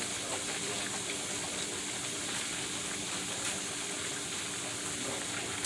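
Food frying in hot oil: a steady sizzle.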